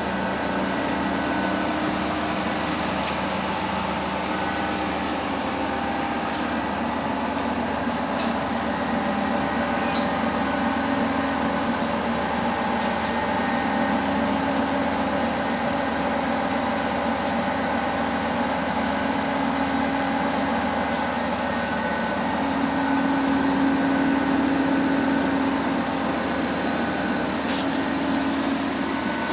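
Estarta 301 CNC centerless grinder running: a steady machine hum with a high whine that steps down in pitch about eight seconds in.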